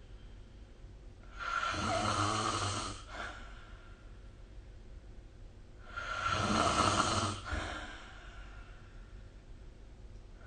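A person snoring: two long snores about four and a half seconds apart, each lasting about a second and a half with a short tail. Quieter breathing noise lies between them, and a third snore begins at the very end.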